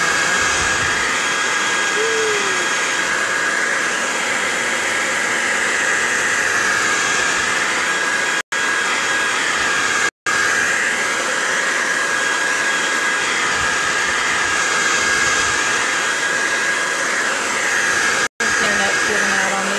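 Old Revlon hand-held hair dryer blowing continuously with a steady whine over its rush of air, drying a coat of chalk paint. The rush wavers up and down as the dryer is swept back and forth, and the sound cuts out for a split second three times.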